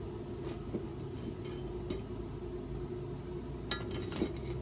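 Stick welding on stainless steel: a steady electric-arc hum and hiss with scattered sharp crackles, the strongest crackles near the end.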